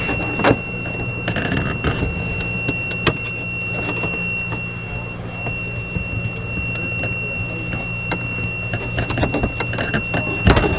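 Multimeter continuity beeper sounding one steady high tone, with a short break about five seconds in: its leads are on a wire that is still shorted to ground. Scattered clicks and knocks and a low steady hum run under it.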